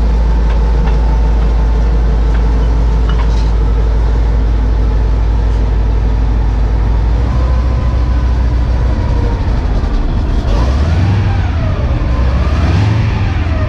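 The M18 Hellcat's freshly rebuilt nine-cylinder radial engine runs loud and steady with the vehicle under way. Near the end it revs up and down twice.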